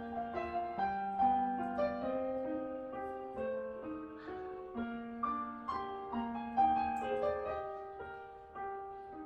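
Background piano music: a gentle melody of struck notes over chords, each note ringing and dying away, growing quieter toward the end.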